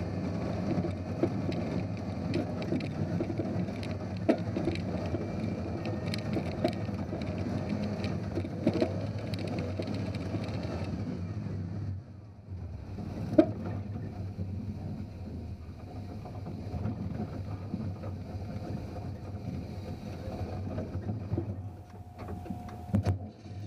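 Off-road 4x4's engine running under load as it crawls up a rocky climb, with scattered knocks and clunks over the rock. It eases off about halfway through, and one sharp knock comes just after.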